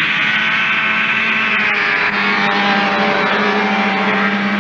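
Snowmobile engine running steadily at speed, holding one even pitch with a small shift about two seconds in.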